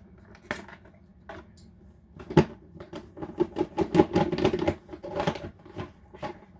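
Packaging of a Samsung Galaxy Tab S6 box being handled and pried open by hand: a few scattered clicks and taps, then about two seconds in a dense bout of crinkling, rustling and clicking that lasts about three seconds.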